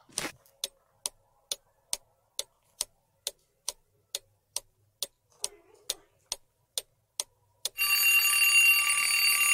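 Countdown-timer sound effect: a clock ticking steadily about twice a second, then an alarm-clock bell ringing loudly about three-quarters of the way through, signalling that time is up.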